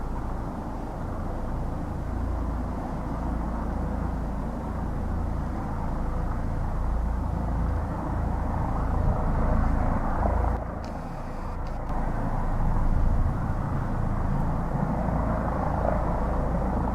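Helicopter running, a steady low rumble.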